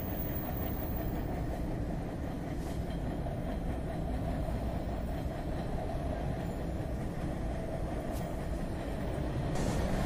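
MBTA Red Line subway train running at speed, heard from inside the car: a steady noise of wheels on rail, getting a little louder near the end.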